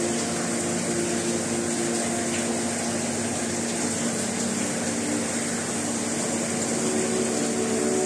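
Steady hum and hiss of aquarium pumps and aeration, with a few held low tones over an even rush.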